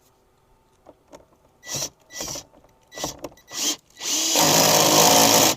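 Power drill driving a bolt home: four short trigger bursts, then a steady run of about a second and a half that stops abruptly near the end.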